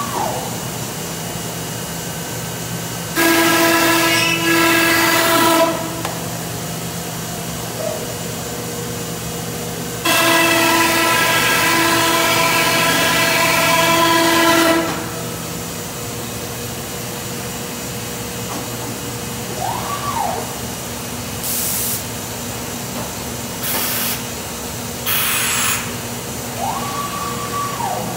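Busellato Jet C21 CNC router running: over a steady hum, a loud whine with hiss comes in twice for several seconds as its head motors run. Short rising-and-falling whines mark the head moving, and a few short hisses of compressed air come near the end.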